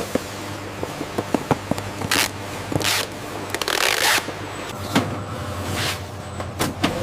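Factory machinery: a steady low hum with many scattered clicks and knocks, and a few short hissing bursts, the longest a little under four seconds in.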